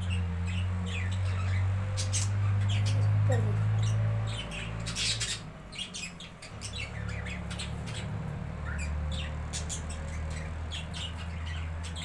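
A flock of budgerigars chattering: many short, high chirps and squawks, over a steady low hum that drops away about four and a half seconds in.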